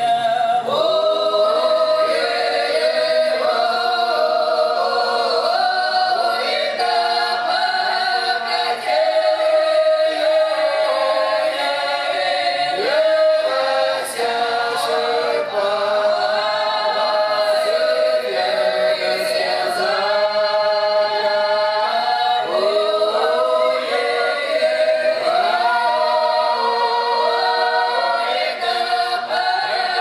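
Russian folk choir of women's voices with one man singing a cappella: a drawn-out protyazhnaya song from the Belgorod region, sung in several voice parts with long held notes and sliding turns between them.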